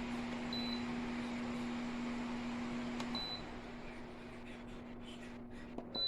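Bladeless tower fan running, a steady hum over rushing air. Its control beeps briefly about half a second in and again about three seconds in, after which the airflow dies down. The hum cuts off with a click near the end, followed by another beep.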